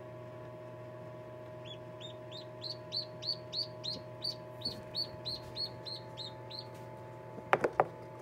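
A newly hatched duckling peeping: about fifteen short, high peeps, roughly three a second, each rising then falling, starting a couple of seconds in, over the incubator's steady hum. Near the end, a few sharp knocks.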